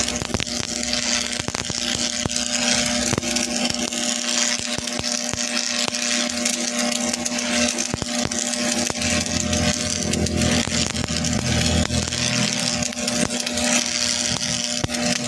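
Metal fabrication work at a machine: a steady hum under a continuous hiss with many small crackles and clicks.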